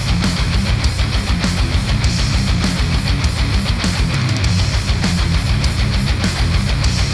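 Heavy rock music with electric guitar and driving drums, played back through Sennheiser headphones and picked up by microphones at the earcups.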